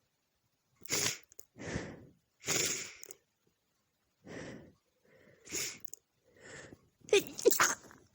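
A woman sneezing repeatedly: a string of short, sharp, noisy bursts with brief silences between them. The loudest come in a quick pair near the end.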